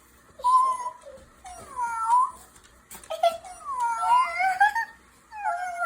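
Kitten meowing repeatedly: about five drawn-out calls that bend up and down in pitch, with short pauses between them.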